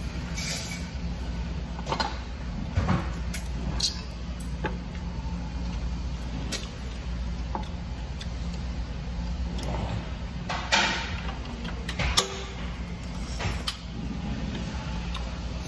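Eating at a table: chewing and mouth sounds, with scattered short clicks and knocks of metal chopsticks and spoons against bowls and a pot, over a steady low background hum.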